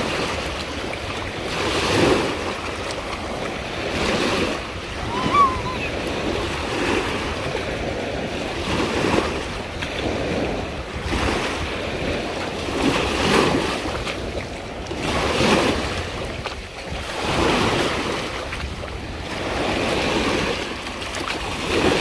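Small waves breaking in the shallows and washing up the beach, a surge of surf every two seconds or so.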